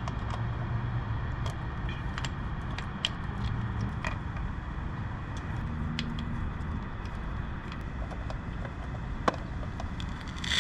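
Scattered light clicks and taps of hand tools and fasteners as motorcycle body panels and bolts are worked on, over a steady background hiss, with one sharper click near the end.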